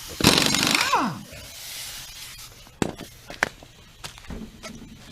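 Impact wrench loosening a lug nut: one loud burst of about a second whose motor whine falls away as it stops, followed by a few sharp metallic clicks.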